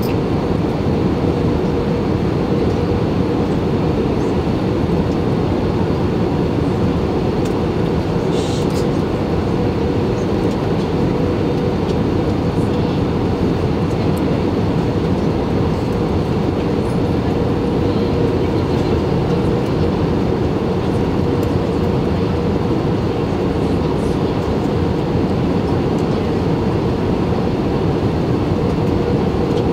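Steady cabin noise inside an Airbus A320-216 on approach with flaps and slats extended, heard from a seat over the wing: the CFM56-5B engines and the rush of air over the wing, with a steady hum running through it.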